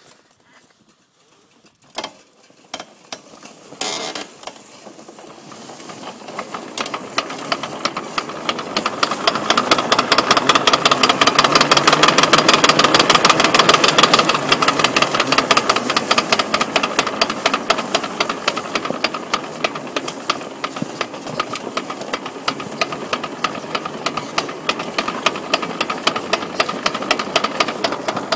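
2000 Yamaha Big Bear 400 ATV driveline knocking: a rapid, even clacking over the running engine. It starts after a few separate clicks, builds up about five seconds in and holds steady. The owner's description says the knock comes only when the driveline freewheels without load, and that he has ruled out the universal joints and the front ring gear.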